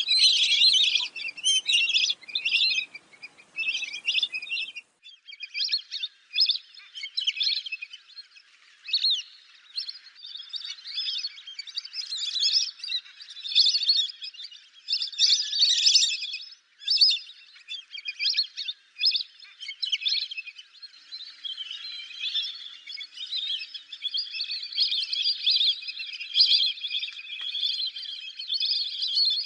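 A flock of lesser whistling ducks calling: a rapid, uneven series of high-pitched whistling calls, growing denser in the second half as many birds call over one another.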